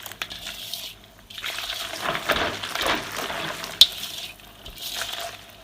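Dried herbs (fennel seeds, licorice root and sebesten fruits) being swished and rubbed by hand in a container of water to wash off dirt, with uneven splashing and small clicks. A single sharp click comes a little before four seconds in.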